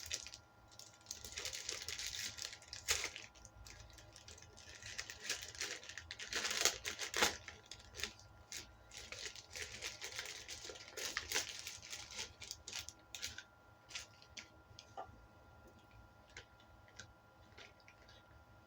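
A package being torn open and its wrapping crinkled by hand, with scattered sharp clicks and handling knocks. The tearing and rustling come in bursts during the first two-thirds and give way to occasional light clicks near the end.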